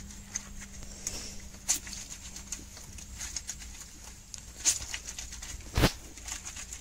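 A cloth being hand-washed in a plastic basin of water: irregular sloshing, splashing and wet squelching as it is rubbed and squeezed, with one louder thump near the end.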